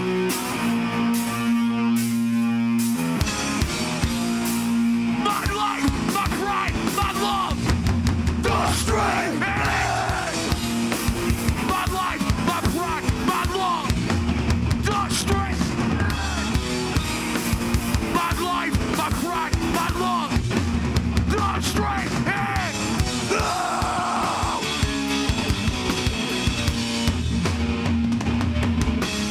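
Live hardcore band playing loud: distorted electric guitars, bass and a pounding drum kit. A thinner held chord opens, and the full band comes in hard about three seconds in.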